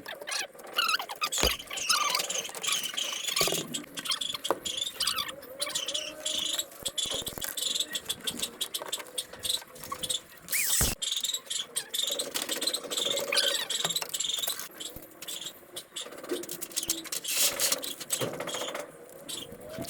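Sped-up plumbing work sounds: a rapid jumble of clicks and knocks mixed with short, wavering high-pitched sounds.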